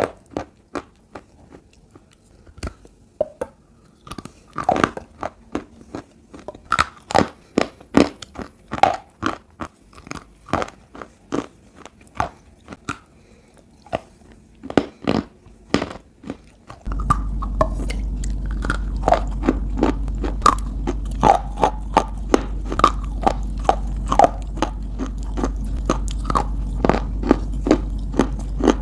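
Close-miked biting and chewing of clay (slate pencils, bars, cubes), giving sharp crunches in quick succession. Just past halfway a steady low hum comes in under the crunching.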